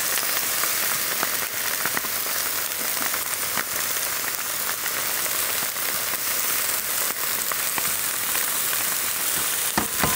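Strips of chicken breast sizzling in oil in a hot frying pan while they are turned with metal tongs: a steady hiss with scattered small pops and clicks, and one sharper knock near the end.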